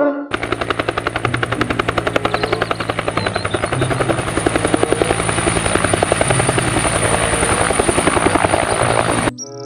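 Two-bladed turbine utility helicopter flying low: a rapid, even chop of the main rotor blades over a steady high turbine whine. It starts just after the beginning and cuts off abruptly near the end.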